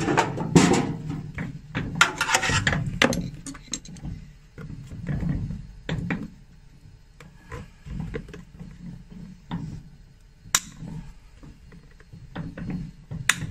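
Metal pincers gripping and working old nails out of a shoe's heel seat. Rustling and scraping in the first few seconds, then scattered small clicks, with a sharp click about ten seconds in and another near the end.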